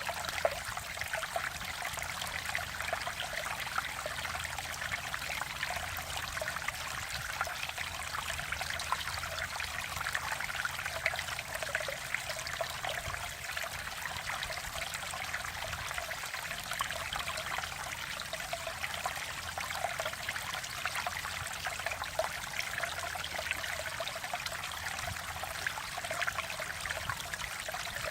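Mountain valley stream flowing in a steady trickling and splashing rush of water.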